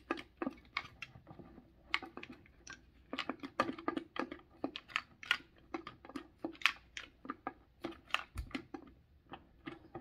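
Small wooden sliding bars of a wooden puzzle box being pushed and pulled by hand, giving an irregular run of light wood-on-wood clicks and knocks.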